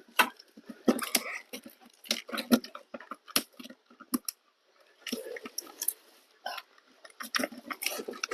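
Boxes and plastic-wrapped parts being handled: irregular crinkling rustles and light knocks, with a quieter stretch in the middle.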